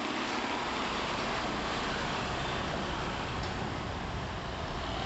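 Steady motor-vehicle noise: a low engine rumble under a constant hiss of road and wind noise.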